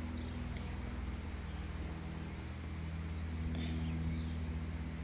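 A steady low mechanical hum with a slight pulse, like a motor running. Two short, high falling bird chirps come about one and a half seconds in.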